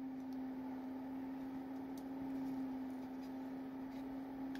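A steady low hum on one tone with a haze of room noise, the kind of drone an appliance or fan gives off in a small room. Faint light clicks come about two and four seconds in, as a plastic sauce cup is handled.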